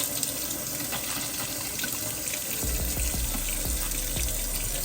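Water running steadily from a newly installed kitchen faucet into the sink, the hot side turned on to test it.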